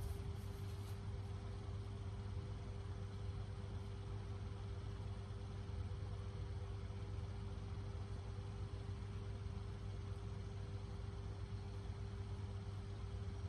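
Steady low machine hum with a constant faint whine over it, unchanging throughout.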